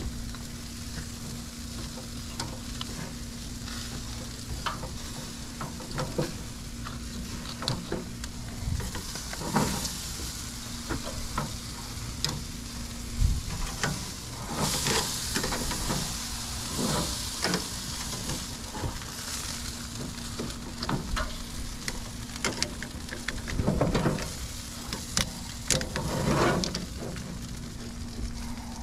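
Baby back ribs sizzling over a charcoal fire, with many light metallic clicks and knocks from tongs and grill hardware as the slabs are handled. A louder hiss rises for a couple of seconds about halfway through.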